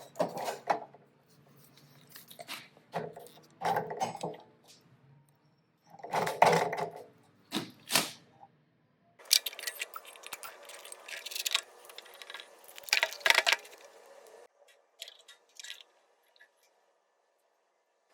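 Metal lathe machining aluminum: irregular scraping, crunching and clinking bursts, then a steadier stretch of cutting noise that drops to a quieter steady sound about fourteen seconds in.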